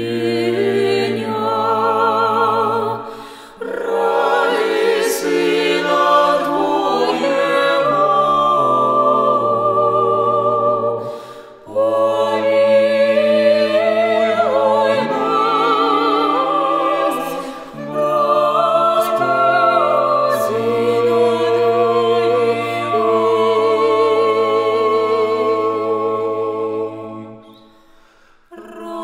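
Mixed vocal quartet of two women and two men singing a cappella in Russian: sustained, slow phrases with vibrato over a low bass line, with short breaks between phrases. The singing dies away near the end.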